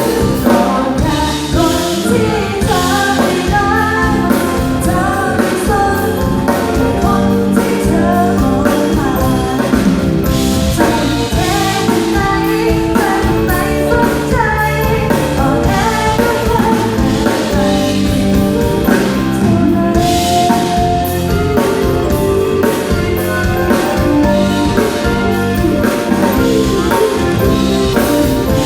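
Music with a drum-kit beat and a woman singing over it.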